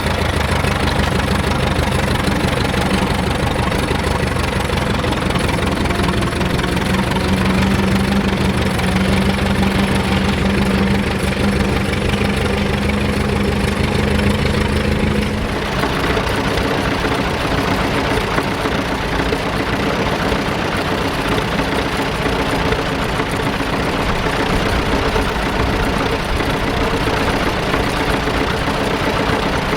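Vintage tractor engine running at a steady speed. About halfway through, the engine note changes abruptly to a different, steady note.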